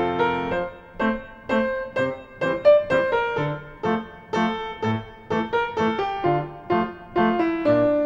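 Piano music: a held chord gives way about half a second in to a melody of single struck notes, about two a second, over occasional low notes.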